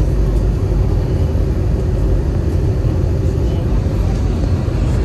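Airbus A321 cabin noise heard from a window seat on the descent: the steady rumble of the jet engines and air rushing past the fuselage, strongest in the low range and unbroken.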